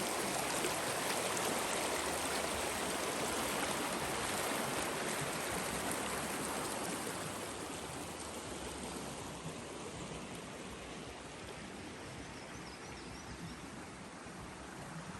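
A creek running over rocks, a steady wash of flowing water that grows gradually fainter from about halfway through.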